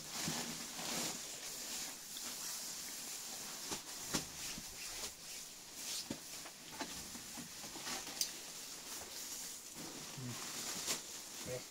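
Chopped straw being poured from a woven plastic sack into a wooden feed trough and spread by hand: a steady dry rustling hiss with scattered light knocks.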